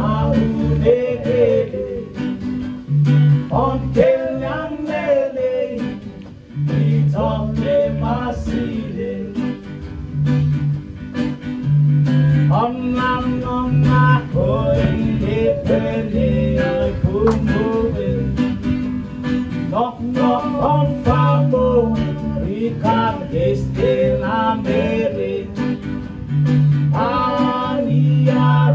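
Small live band playing a Rotuman song: strummed acoustic guitar, keyboard and electric guitar, with a voice singing over them.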